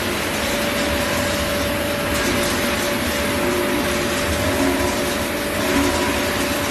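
Dry pet-food production line machinery running steadily: conveyor, motors and equipment making an even mechanical din with a constant mid-pitched whine on top.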